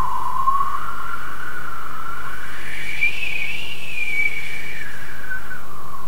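Human beatboxer's mouth-made space sound: one whistle-like tone that glides slowly up to a peak about halfway through, then falls back down.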